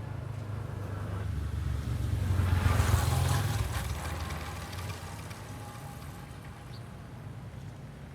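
A vehicle passing by: a low engine rumble with a rushing hiss that swells to its loudest about three seconds in, then fades away.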